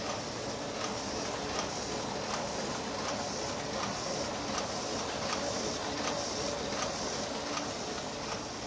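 AB Dick 9810 mini offset press running: a steady mechanical whir from the spinning cylinders, with a regular sharp click about every three-quarters of a second.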